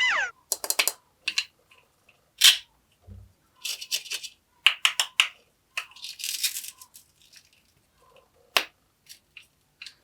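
A string of short, sharp clicks and taps at irregular intervals, with a brief rustle about six seconds in.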